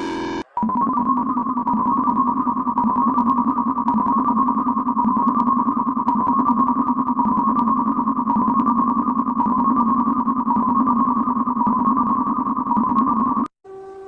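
Electronic emergency-alert alarm tone: a warbling synthesized tone with a high and a low pitch sounding together, loud and steady, starting just after a short break about half a second in and cutting off abruptly near the end, where a different steady alert tone begins.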